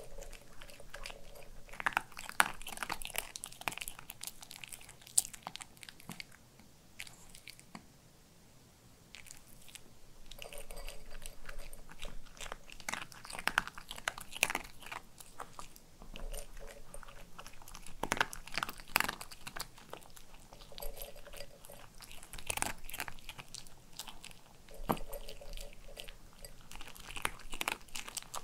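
A white Pomeranian crunching and chewing dry kibble off a plate, in bursts of sharp crunches with a quieter pause of a few seconds about a third of the way in.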